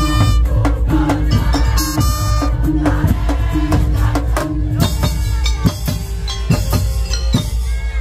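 Live Madurese tong-tong (musik daul) band playing: trumpets and saxophones carry the tune over big barrel drums and percussion. About five seconds in the horns drop out, leaving the drums and percussion hits.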